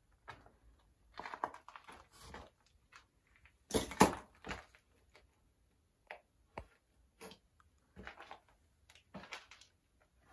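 Footsteps crunching and scuffing on a gritty, debris-strewn basement floor, irregular and fairly quiet, with the loudest crunch about four seconds in.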